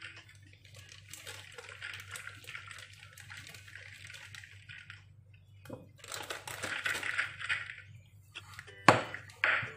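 Silicone spatula stirring and scraping stiff butter cookie dough against a glass mixing bowl, in two stretches of rough scratching, then a sharp knock and a second one near the end.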